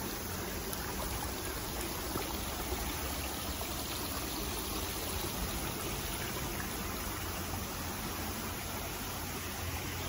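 Shallow brook babbling over stones, a steady rush of running water.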